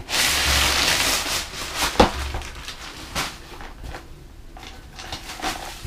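Black plastic bag crinkling loudly for about a second as a long cardboard box is pulled out of it, then a sharp knock and lighter rustling and tapping as the cardboard box is handled.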